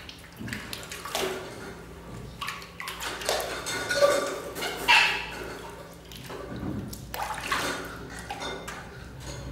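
Water splashing and sloshing in a large washbasin as an infant monkey is bathed, with irregular splashes from a hand and from the monkey being dipped into the water.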